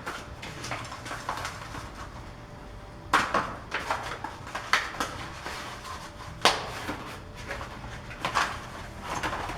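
Shipping packaging being stripped off a new BMX bike: irregular rustling and crinkling, with several louder sharp crackles.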